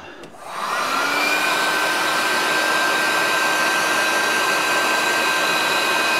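Electric heat gun switched on: its fan spins up with a rising whine over the first second or so, then blows steadily with a constant whine.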